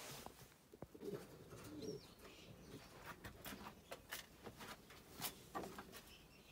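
Faint cooing of racing pigeons, clearest between about one and two seconds in, with scattered light clicks and taps.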